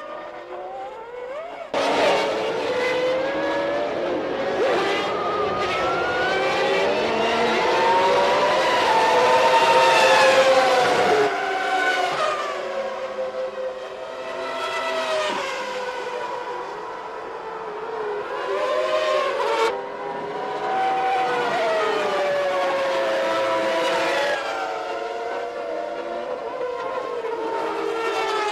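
3-litre Formula One racing engines at high revs, their pitch rising and falling through gear changes and accelerations. The sound changes abruptly about 2, 11 and 20 seconds in.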